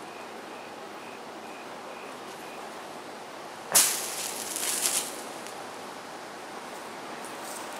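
Burning magnesium shavings flare up all at once about four seconds in: a sudden loud burst of hissing and crackling that lasts about a second and then dies down.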